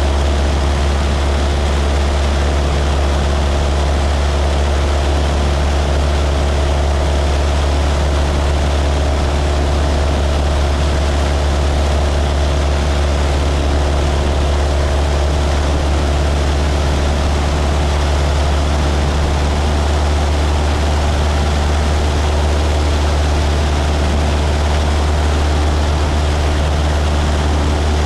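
Single-engine light airplane's piston engine and propeller running at a steady cruise setting, heard from on board as a loud, even, low drone with no change in pitch.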